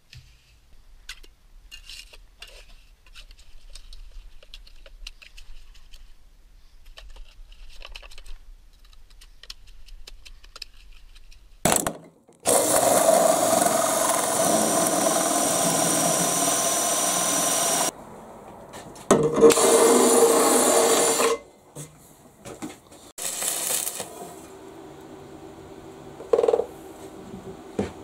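Faint scrapes and knocks, then a handheld power drill running a hole saw through a metal plate. It runs loud and steady for about five seconds with a high whine, followed by two shorter loud bursts.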